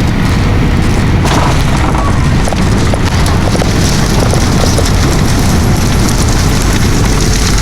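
Loud, steady low rumble inside an airliner cabin during landing on the runway: engine noise and wheels rolling on the runway, with the cabin rattling.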